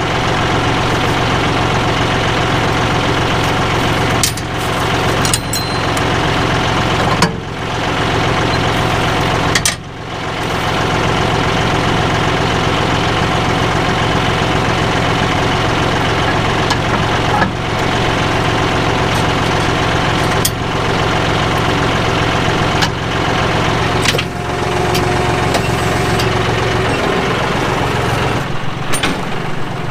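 John Deere 5055E tractor's diesel engine running at a steady speed, with a number of short sharp knocks and clicks scattered over it.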